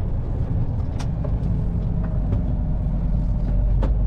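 HGV's diesel engine running steadily with a low rumble while driving, with a few sharp clicks over it.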